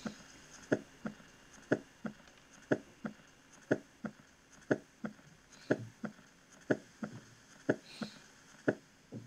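Normal heart sounds from a cardiac auscultation recording: a regular two-part beat about once a second, with the first heart sound (S1) louder than the second (S2) and no extra sounds or murmur between them.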